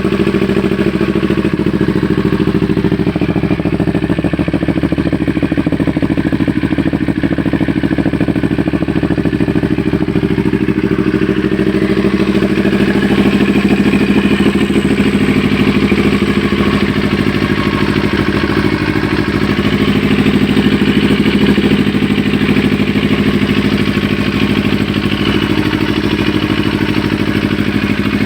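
Motorcycle engine breathing through an aftermarket VMAX exhaust pipe, running steadily at idle with an even exhaust note.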